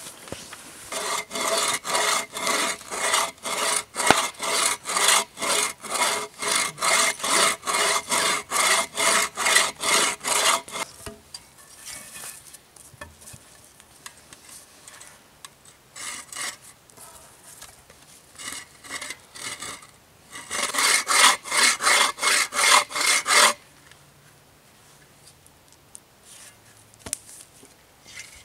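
Hand saw cutting through a small log: back-and-forth strokes about two a second for roughly ten seconds, then a few scattered strokes, and a last quicker run of strokes before it stops.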